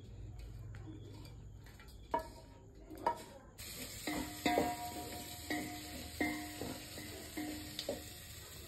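A metal spatula scraping roasted spices off a pan into a steel mixer-grinder jar, with a couple of sharp knocks. Then, over a steady hiss, a run of about seven ringing metallic taps on steel.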